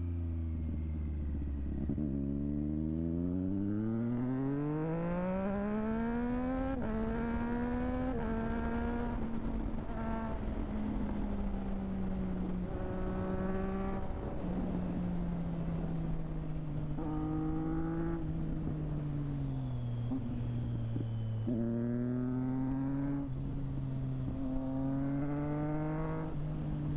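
Triumph Street Triple 765 RS's three-cylinder engine through a Delkevic exhaust, pulling from low revs and accelerating up through the gears with a quick drop in pitch at each upshift. It then runs fairly steady, eases off briefly, and accelerates through several more gears near the end.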